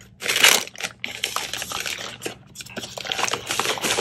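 Plastic wrapping crinkling and rustling as a remote controller is pulled out of its protective bag by hand. It is loudest about half a second in, followed by many small crackles, over a faint steady hum.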